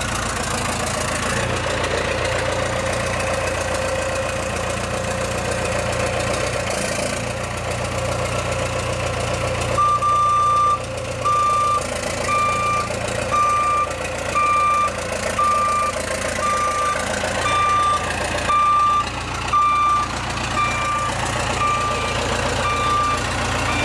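Cummins 4BT four-cylinder turbo diesel running steadily in a Bullnose Ford F350. About ten seconds in, a backup alarm starts beeping about once a second as the truck backs up.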